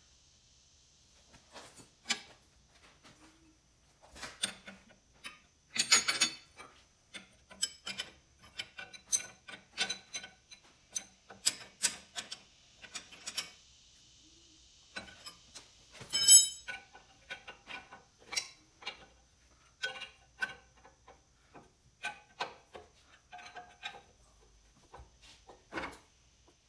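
Wrenches and steel hydraulic hardline fittings clicking and clinking as the lines are fitted and tightened: irregular metallic taps and clicks, with the loudest clank about sixteen seconds in.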